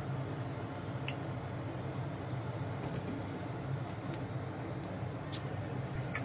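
Hot oil sizzling gently around a single spinach pakoda of gram-flour batter deep-frying in a pan, with a few sharp crackles scattered about a second apart.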